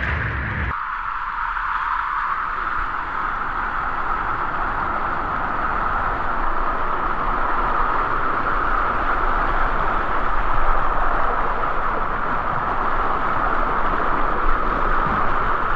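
Water rushing down a waterslide flume under a sliding rider: a loud, steady rushing hiss, whose deeper rumble drops away about a second in.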